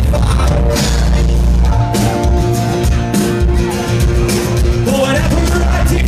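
Live rock band playing at full volume, with acoustic and electric guitars, bass and drums, heard from within the audience.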